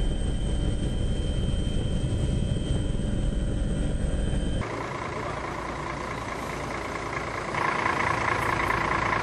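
Steady engine drone of a patrol aircraft heard from inside, a deep rumble with a thin high whine over it. It cuts off suddenly about halfway through and is replaced by a steadier, brighter noise with no deep rumble, which grows louder near the end.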